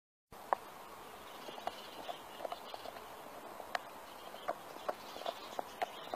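A dog gnawing a bone: irregular sharp cracks and clicks of teeth on bone over a steady hiss, starting a fraction of a second in.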